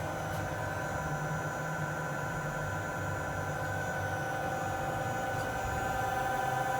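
Kia Turn 15 CNC lathe running: a steady whine made of several held tones over a low hum, growing slightly louder near the end.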